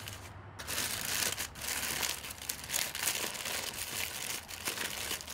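Aluminium foil, lined with parchment paper, crinkling and crumpling as it is folded and crimped shut into a packet by hand. The crackling starts about half a second in.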